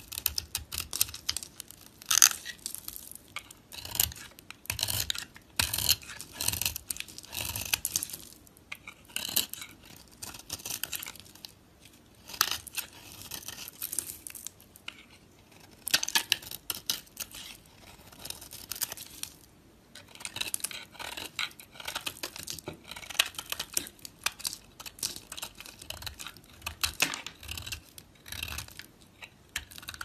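Snap-off utility knife blade cutting and scraping a dry bar of soap: runs of quick, crisp strokes with crunchy shavings, broken by brief pauses.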